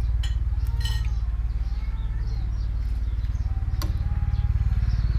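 Spoon and chopsticks clinking a few times against a ceramic noodle bowl while the noodles are stirred, over the steady low rumble of an idling engine.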